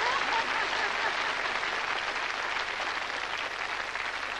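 Studio audience applauding a guest's entrance, the clapping slowly dying down.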